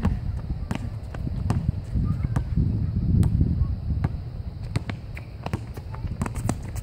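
Basketball bouncing on a hard outdoor court: a string of short, sharp, irregularly spaced thuds, over a low rumble.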